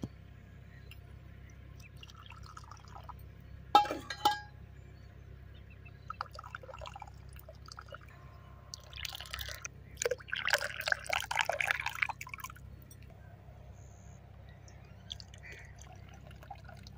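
Kahwa poured from a small steel pot through a metal strainer into a cup, a trickling, splashing stream of liquid with drips that runs for about four seconds from roughly nine seconds in. About four seconds in there is one sharp, ringing metal clink, with lighter clinks here and there.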